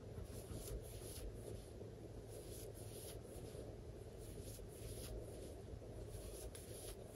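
Soft, faint scratching and rustling of a metal crochet hook drawing yarn through stitches, coming in irregular strokes about twice a second, over a steady low room hum.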